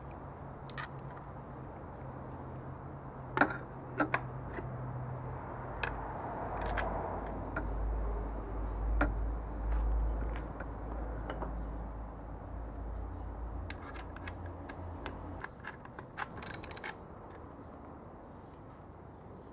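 Scattered light metal clicks and knocks as a Jetstream steel handlepost stem is fitted onto a Dahon folding bike's steerer and its bolt is worked with a hex key, with a quick run of clicks near the end. A low rumble runs through the middle.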